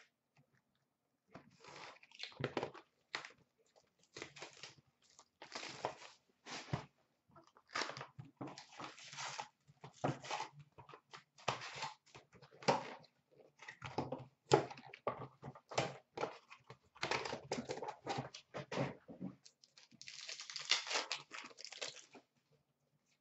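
Cardboard hobby box of Upper Deck Masterpieces hockey cards being torn open by hand and its foil-wrapped packs pulled out and stacked: irregular crinkling, tearing and rustling of cardboard and wrappers, with a denser run of rustling near the end.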